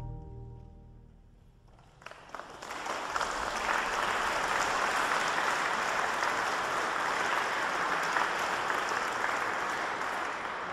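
The last chord of a church pipe organ dies away in a reverberant church. About two seconds in, an audience starts applauding, steady clapping that begins to ease off near the end.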